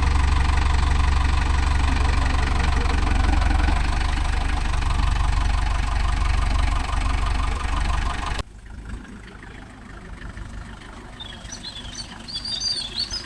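Tractor's diesel engine running steadily, then cutting off abruptly about eight seconds in. A quieter background follows, with birds chirping near the end.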